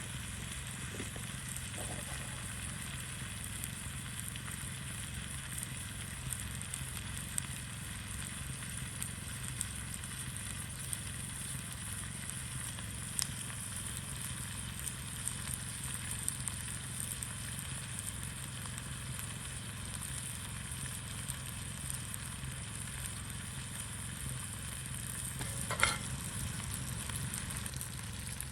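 Fajita peppers and onions sizzling steadily in a pan over a campfire. A single sharp clack near the end, with a few faint ticks before it.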